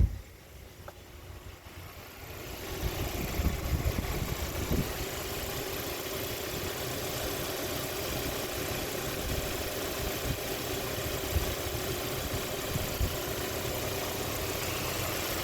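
A sharp click, then a 2013 Hyundai Sonata's 2.4-litre four-cylinder engine idling steadily from about two seconds in, with occasional low thumps. The engine has been burning through its oil, and the owner diagnoses rod knock.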